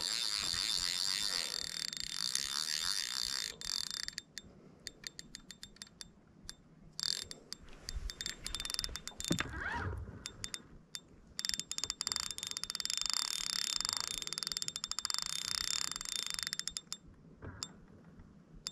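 Fishing reel clicking rapidly in three long runs with short pauses between, the reel working against a large fish on the line.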